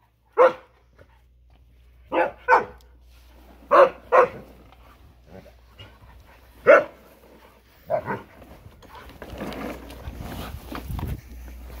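Husky barking in about eight short, sharp bursts, several in quick pairs. A quieter, steadier noise follows in the last few seconds.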